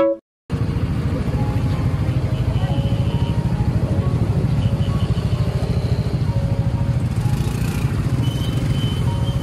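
A piano intro phrase cuts off, and after a short gap a motorcycle is heard under way: a steady engine and road rumble with a fast, even pulsing.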